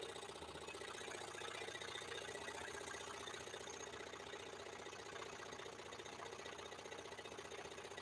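Axminster Trade scroll saw running steadily, its blade cutting slowly through a small block of hardwood. A faint, even motor hum with rapid, regular blade-stroke chatter.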